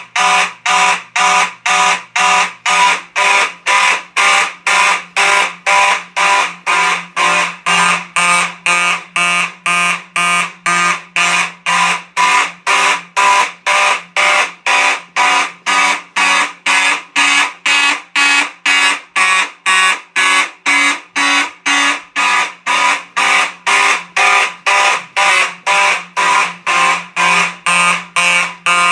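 Simplex fire alarm horns on a 4100 classic system sounding in alarm, pulsing evenly at about two loud buzzy blasts a second.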